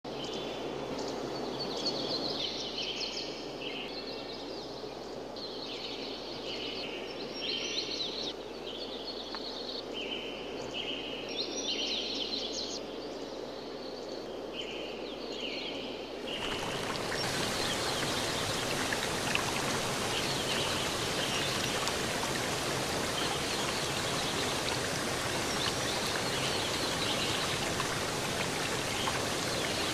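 Nature ambience of flowing water with high chirping calls over it. About halfway through it switches abruptly to a louder, even hiss of rushing water or rain.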